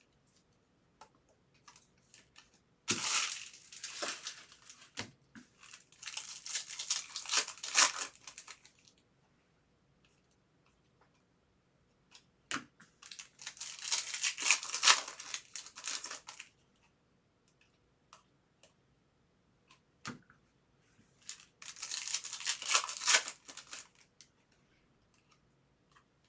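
Foil trading-card pack wrappers being torn open and crinkled, in four separate bouts, with small clicks of cards being handled between them.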